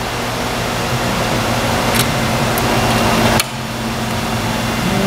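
Steady workshop machinery hum with a low drone, and a few light metallic clicks from alligator test clips being handled. The hum drops abruptly about three and a half seconds in.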